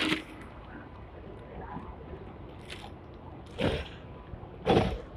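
Sixth-generation Hong Kong double-decker tram rolling past slowly, its steel wheels giving three short, loud clunks on the track: one at the start and two about a second apart near the end, over a steady low running rumble.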